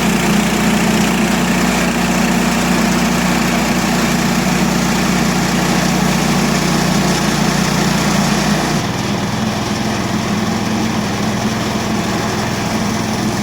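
Gas engine of a portable band sawmill running hard as the blade saws through a green elm log. About nine seconds in, the engine note drops and it runs a little quieter.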